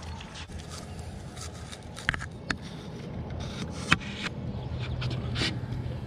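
Knocks and scrapes of a landing net and its aluminium handle against a composite dock deck as a bass is landed, with four sharp knocks, the loudest about four seconds in.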